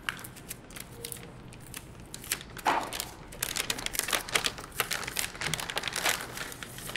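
Plastic anti-static bag crinkling and crackling as a graphics card is handled and slid out of it. There are a few scattered crackles at first, then a dense run from a little under halfway through.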